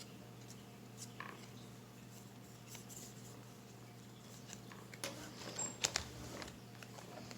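Small handling noises of trading cards and packaging: scattered light clicks, taps and rustles, with a quick run of sharper clicks about five to six seconds in.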